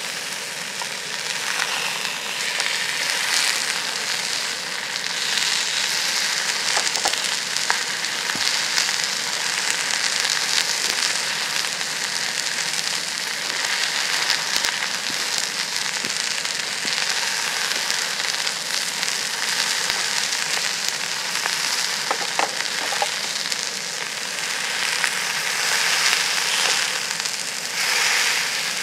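Beef searing in a hot cast-iron pan: a steady frying sizzle with scattered sharp pops and crackles of spitting fat.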